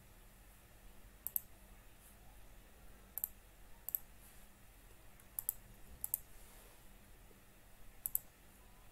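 Computer mouse buttons clicking about six times at irregular intervals, each click a quick press and release, over a quiet room with a faint hum.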